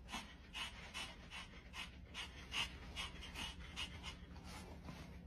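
Pomeranian panting softly with its mouth open, a quick even run of faint breaths, about two or three a second.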